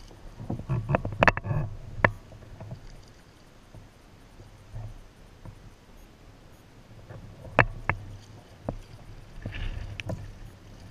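Kayak paddling: a double-bladed paddle dipping and splashing in the water, with sharp taps and dripping from the blades. The strokes bunch about a second in and again in the last few seconds, with a quieter glide between.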